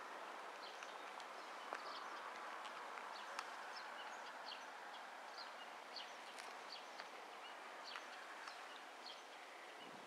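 Faint outdoor ambience: small birds chirping in short, high notes again and again over a steady background rush, with a few light clicks.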